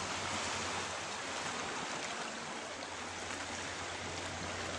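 Small sea waves washing and lapping over the rocks of a rocky shore, a steady, even wash of surf.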